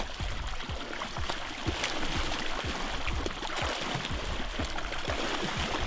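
Water splashing and churning as a large hammerhead shark's tail thrashes at the surface.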